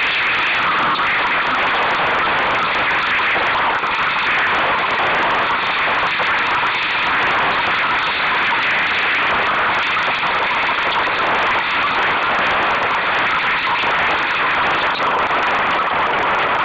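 Steady rushing noise of wind and water on a Solo sailing dinghy under way, even and unbroken.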